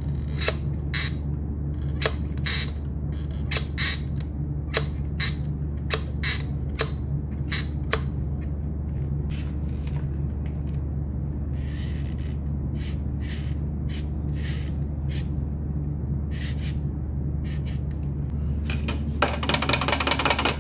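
Paint being stirred with a flat stick in a metal paint can: a rapid, continuous scraping that starts near the end. Before it there is a steady low hum with scattered sharp clicks and taps.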